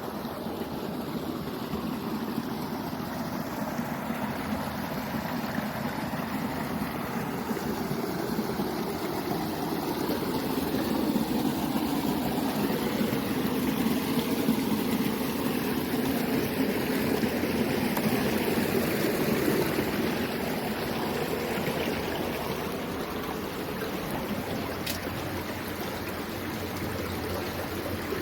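Steady rushing rumble of a hidden underground waterfall echoing through the tunnels of an old lead mine, swelling a little in the middle.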